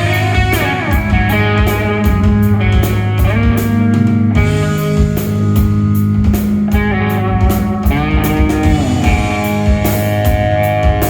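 Live rock band playing an instrumental passage on electric guitar, bass and drums, with shifting, sliding guitar lines over steady drum and cymbal hits.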